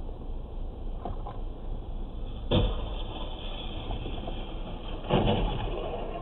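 Car interior noise recorded by a dashcam while driving: a steady low rumble of engine and road, with two louder thumps, one about two and a half seconds in and a longer one about five seconds in.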